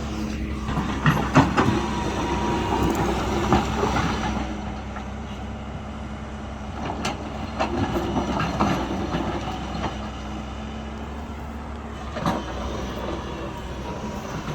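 Backhoe loader's diesel engine running steadily while it digs, with irregular metallic clanks and knocks from the bucket and arm. The knocks cluster in the first few seconds, again around eight seconds, and once more near twelve seconds.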